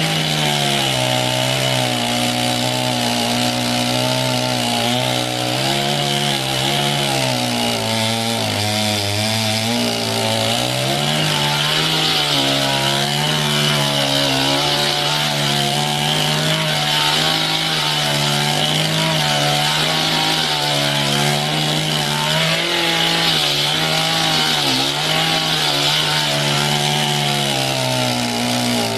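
Gasoline chainsaw running continuously while sawing a log, its engine note sagging and recovering in pitch several times as it cuts.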